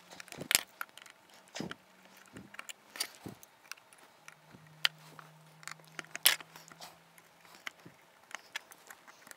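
Small metal hand tools clicking and scraping against the plastic chassis of a model locomotive as a plastic part is pried loose: scattered light taps, the loudest about six seconds in.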